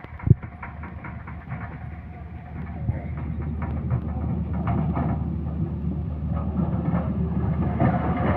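Heavy earthmoving machinery working: a low engine rumble that grows louder through the second half, with repeated metallic clanks and one sharp knock just after the start.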